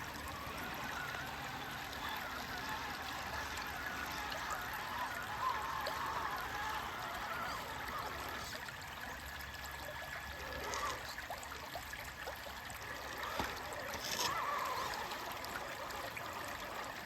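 Shallow creek water trickling and babbling steadily, with a few brief splashy moments.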